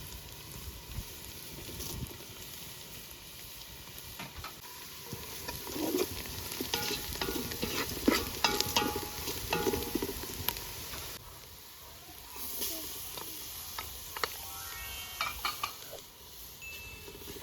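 Food sizzling in a cooking pot while a utensil stirs it, with a run of sharp clinks and knocks against the pot in the middle.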